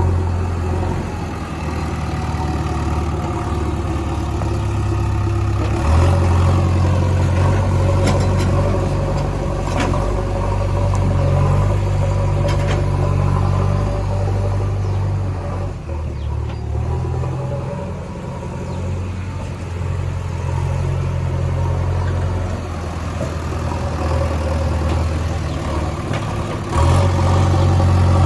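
Heavy diesel machinery engine running steadily, stepping up under more throttle about six seconds in, easing off around sixteen seconds and picking up again near the end, with a few faint knocks in between.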